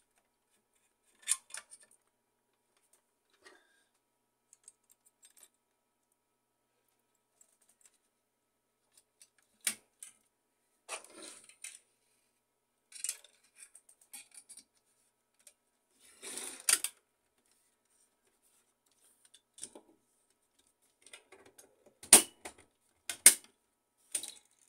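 Scattered clicks, clinks and rattles of the hard plastic and metal parts of an HP LaserJet M607 fuser assembly being handled and fitted back together by hand. Two sharp knocks near the end are the loudest.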